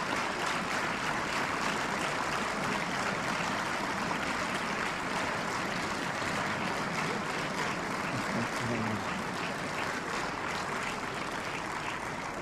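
Sustained applause from a parliamentary assembly: many hands clapping steadily together, easing slightly near the end.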